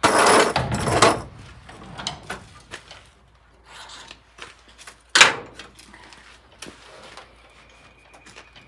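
Rusty steel side cargo door of a 1958 VW Type 2 bus grating and scraping on its loosened hinges as it is pulled open and worked off the body, with a single sharp metallic clunk about five seconds in and small scrapes and knocks between.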